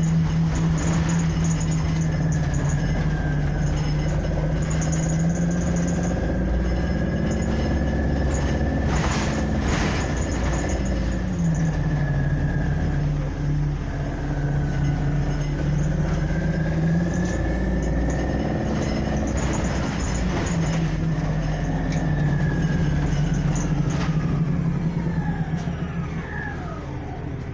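City transit bus heard from inside its cabin while under way: engine and drivetrain running with a whine that rises and falls in pitch several times as the bus speeds up and changes gear. There is a short rattle about nine seconds in, and the whine sweeps down near the end as the bus slows.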